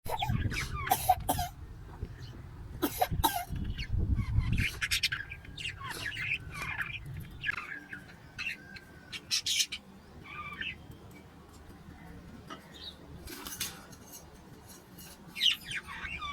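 Parrots squawking and chirping: many short, sharp calls scattered throughout, some sliding in pitch. A low rumble runs under the first five seconds or so.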